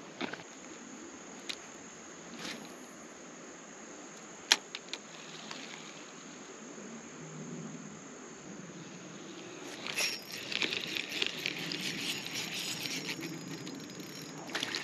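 Insects calling in a steady high-pitched drone, with a few sharp clicks, the loudest about four and a half seconds in. About two-thirds of the way through, a dense scratchy rattle joins in.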